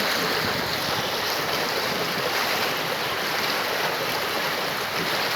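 Stream water flowing and splashing steadily.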